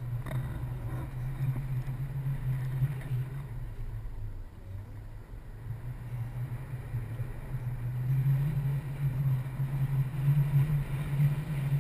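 Wind rushing over the camera's microphone during a tandem paraglider flight: a steady low rumble that grows louder in the second half.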